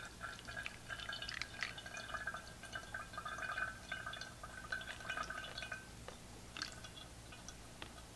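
Water poured onto the lid of a Cuisinart thermal coffee carafe, trickling and splashing down through the lid into the pot, dying away about six seconds in. A couple of light clicks follow near the end.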